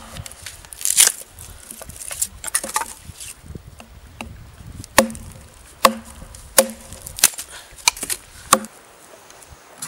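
Small hatchet chopping at a stick held against a log: about nine sharp wooden chops at uneven intervals, stopping near the end.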